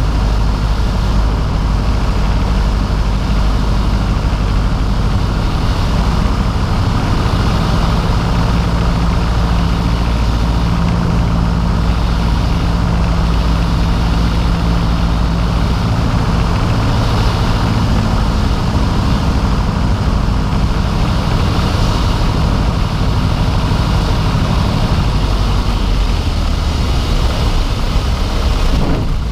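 Piper PA-22/20 Pacer's 150-horsepower four-cylinder Lycoming engine and propeller running steadily, heard from inside the cabin with airflow noise, during the approach to land on a dirt strip.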